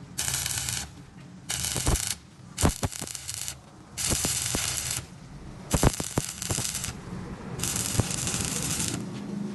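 Welding arc crackling in six short bursts of about a second each with brief pauses between, and a few sharp clicks in the gaps.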